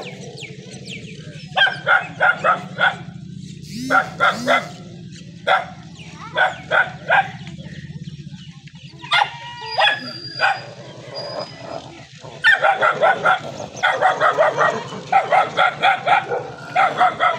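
Dogs barking in repeated bursts of several barks, in one cluster after another with short pauses between, over a steady low hum.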